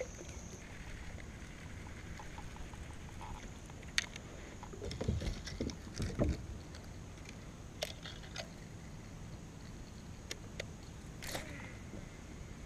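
Paddling a plastic sit-in kayak: water sloshing from paddle strokes around the middle, with a few sharp knocks and clicks of the paddle and gear against the hull.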